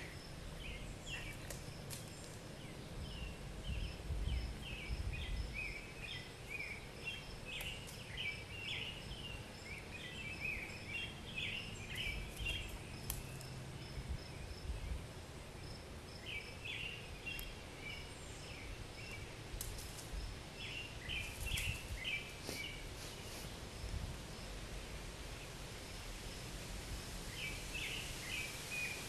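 Outdoor yard ambience: small birds chattering in quick runs of short chirps that come and go in several bouts, over a faint steady high insect drone.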